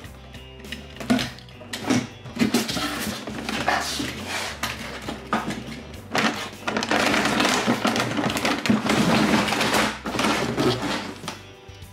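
Utility knife slitting a cardboard box open, then cardboard flaps and a clear plastic packaging tray being handled, with scraping and crinkling rustles. The rustling grows denser and louder about halfway through.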